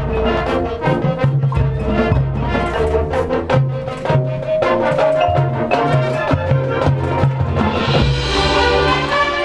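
Marching band playing, with brass over drumline percussion striking in a steady rhythm and a bright, sustained swell near the end.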